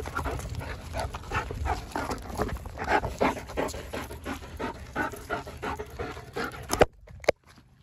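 German Shepherd panting hard with a tennis ball held in its mouth, about three quick breaths a second. A sharp knock near the end cuts the panting off.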